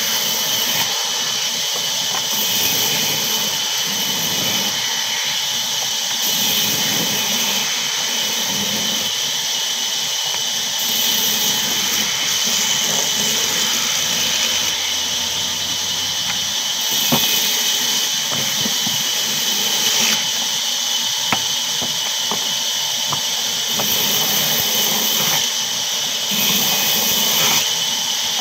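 Large vertical band saw running, its blade cutting through small blocks of wood. A steady, high hiss that swells at times.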